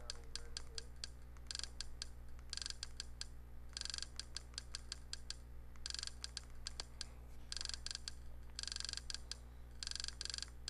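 Short runs of rapid small clicks, several in quick succession, repeating every second or so as a menu list is scrolled down, over a steady low hum.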